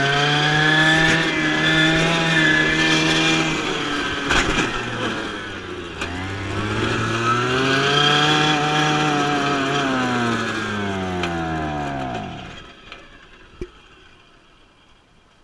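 Small two-stroke strimmer engine driving a go-kart, revving up and easing off twice, its pitch rising and falling. About twelve seconds in it falls away and the engine sound stops.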